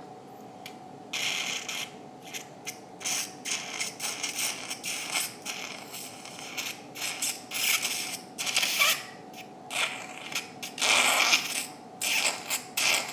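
Surgical suction sputtering and hissing in irregular bursts as blood is cleared from an opened nasal cavity, starting about a second in.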